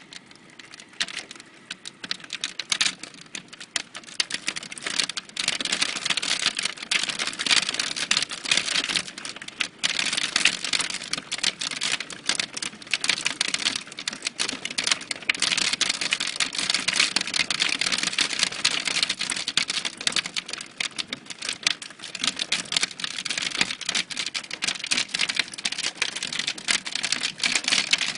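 Hailstorm: a dense, rapid patter of hailstones clicking as they strike hard surfaces, over the hiss of falling rain. It grows heavier over the first few seconds.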